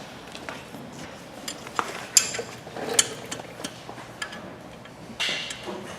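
Metal tools and metal pump parts clinking and knocking against each other: a run of sharp clinks, the loudest two about two and three seconds in.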